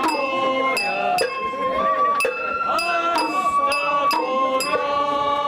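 Festival float hayashi: a high bamboo flute playing a held, bending melody over repeated sharp strikes of a small hand gong, about two strikes a second.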